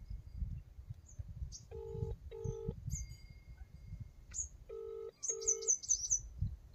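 Mobile phone ringback tone heard through the handset: two double rings about three seconds apart, the call ringing and not yet answered. Birds chirp in the background, with a quick run of chirps after the second ring.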